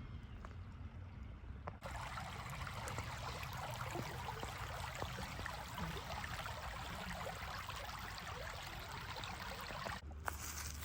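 A small creek running, an even rushing trickle that starts abruptly about two seconds in and cuts off shortly before the end.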